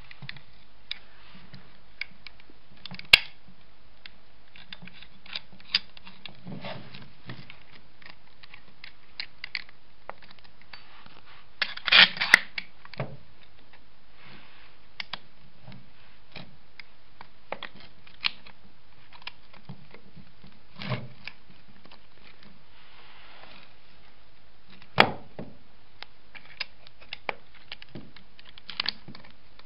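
Metal parts of an electric starter motor, its casing and end cap, being handled and turned against each other while the through-bolt holes are lined up: scattered clicks, light rubbing and knocks, with louder knocks about three, twelve and twenty-five seconds in.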